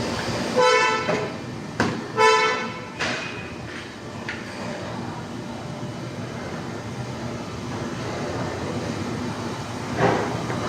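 A vehicle horn sounds two short toots, about a second and a half apart, with a sharp click between them, over a steady background noise.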